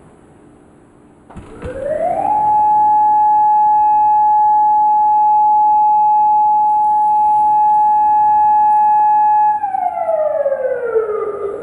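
Outdoor warning siren sounding a test: it comes on about a second in, rises quickly in pitch to one loud steady tone held for about seven seconds, then winds down, falling in pitch near the end.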